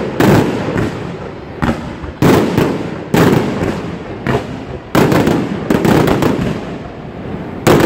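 Italian fireworks batteria: aerial shells bursting in quick succession, a loud bang every second or two, each dying away in a rumble and crackle.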